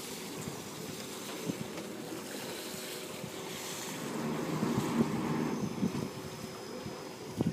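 Wind buffeting the microphone over churning water from a Jeanneau 57 sailing yacht's propeller wash as it backs into a slip, getting louder about four seconds in.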